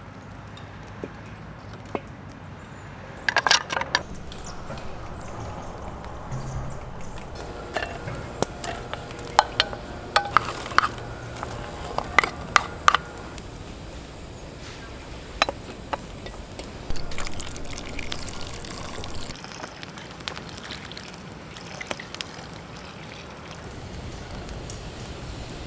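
Rain dripping and trickling, with scattered sharp clicks and knocks of things being handled.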